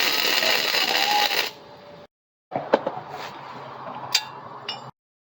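Loud steady noise that cuts off about a second and a half in. After a brief dead silence, a few light metal clinks and taps of steel parts being handled sound over a low hum.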